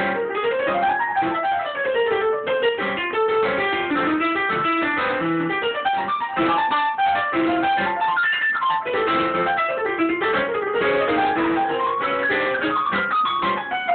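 Digital piano played fast with both hands: rapid runs and chords, with quick note runs sweeping down and back up in pitch, most clearly about two seconds in and again about ten seconds in.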